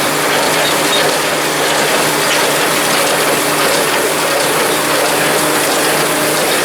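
Tractor and hay baler running: a steady mechanical clatter over a constant engine hum.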